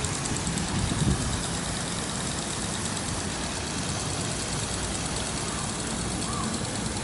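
Garden sprinkler on a hose spraying water in a steady hiss, over a steady low engine-like hum.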